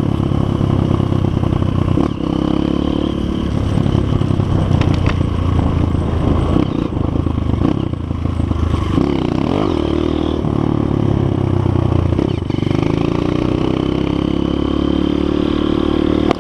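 Honda CRF230 trail bike's single-cylinder four-stroke engine running under throttle while being ridden, its revs dropping and climbing a few times, with some rattling.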